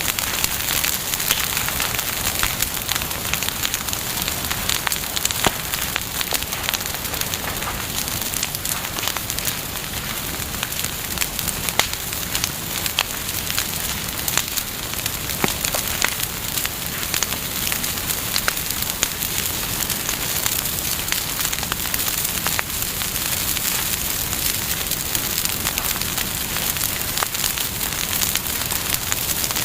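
Campfire burning, with a steady hiss and irregular sharp crackles and pops from the burning wood.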